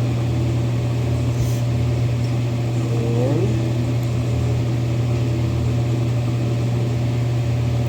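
Steady low hum of a home furnace running, even in level throughout.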